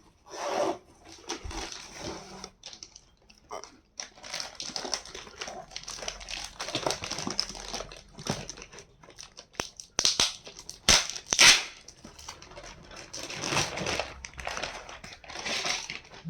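Packaging crinkling and rustling in irregular bursts as a parcel is unwrapped by hand, with a few louder crackles just after the middle.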